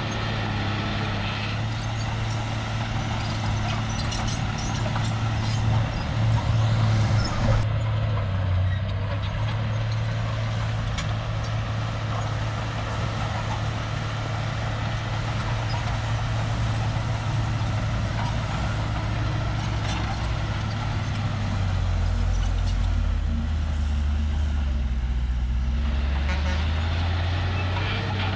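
Small crawler bulldozer's diesel engine running steadily under work, with a few louder clanks about six to seven seconds in. Near the end the engine note drops lower for a few seconds, then comes back up.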